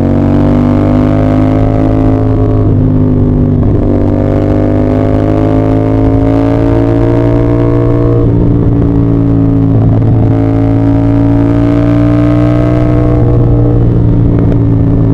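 CFMoto 450SR-S parallel-twin motorcycle engine and exhaust under way. The pitch climbs steadily as it accelerates, then drops back at each of several gear changes and climbs again.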